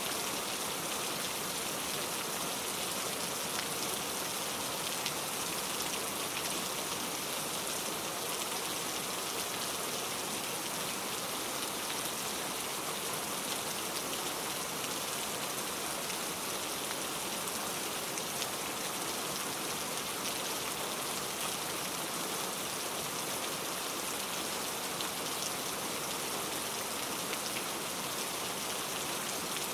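Heavy rain falling steadily, a dense even hiss with fine scattered patter of drops striking a surface.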